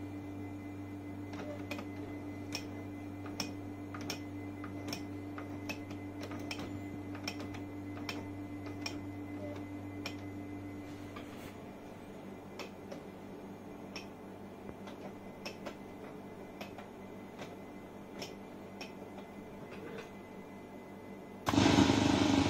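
Band-change mechanism of an R-390A/URR receiver clicking step by step through its detents as the megacycle-change knob is turned, driving the freshly repaired and lubricated RF gear train. About a second before the end, a sudden loud rush of receiver noise and hum comes on from the speaker.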